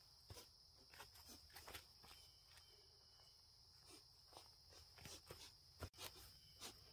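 Faint footsteps and rustling as a person walks through leaf litter and low undergrowth, over a steady faint high-pitched hum.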